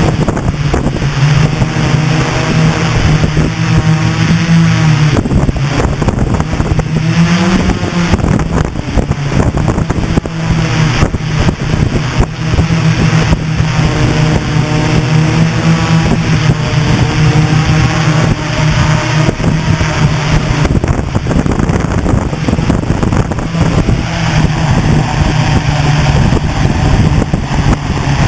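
Hexacopter's six brushless motors and propellers buzzing loudly, heard from the camera on board. The pitch rises and falls several times as the throttle changes.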